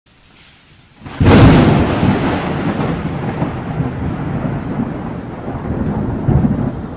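Thunder sound effect: a sudden thunderclap about a second in, followed by a long rolling rumble that swells again near the end.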